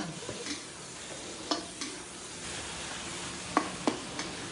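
Cucumber and egg sizzling in an electric wok while a metal spatula stirs and scrapes them, with a few sharp knocks of the spatula against the pan.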